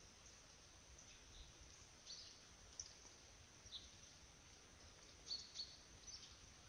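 Near-silent outdoor quiet with a few faint, short, high bird chirps scattered through it, the clearest pair about five seconds in.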